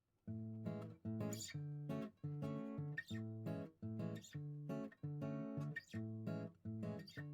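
Background music: acoustic guitar strumming chords in a steady rhythm, about two strums a second.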